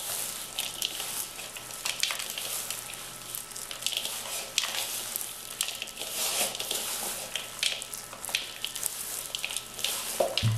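Gloved hands kneading and squeezing a crumbly biscuit, chocolate and peanut dough in a plastic bowl: an irregular crackling and squishing with the rustle of disposable plastic gloves.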